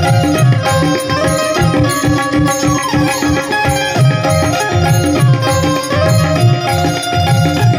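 Tabla playing a steady rhythm under a stepping melody on a bulbul tarang, in a small folk music ensemble.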